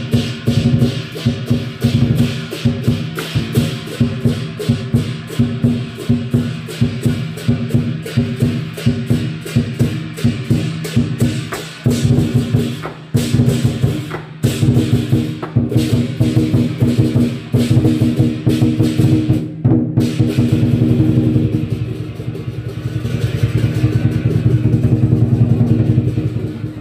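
Lion dance percussion: a big drum beaten in fast, dense strokes with clashing cymbals and a ringing gong. Near the end the separate beats give way to a continuous roll.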